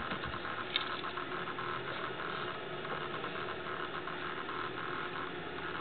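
A steady mechanical hum, with a small click about a second in.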